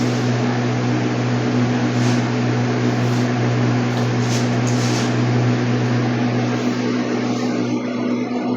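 A machine running steadily: a constant low hum with an even hiss over it, easing slightly near the end.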